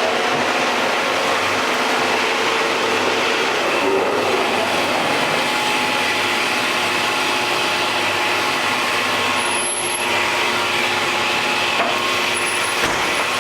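Woodworking machinery running steadily: a constant mechanical hiss and hum with a few steady tones.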